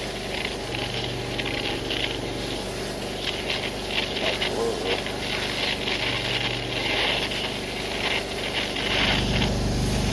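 Gas torch hissing as it heats a bearing's inner race, over the steady hum of a pressure washer; the hum grows louder about nine seconds in.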